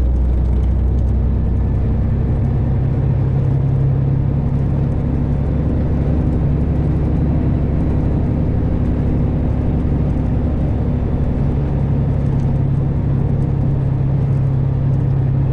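Freightliner Classic XL semi truck's diesel engine running steadily at low road speed, its drone rising in pitch about two seconds in as the engine picks up revs, then holding.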